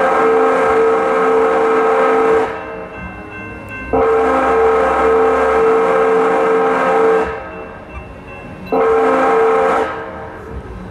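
Horn sounding the grade-crossing signal for an approaching train: two long steady blasts, then a short one, with the same chord each time.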